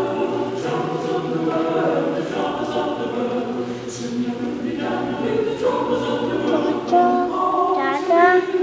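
Mixed church choir of men and women singing a spiritual a cappella, holding full sustained chords.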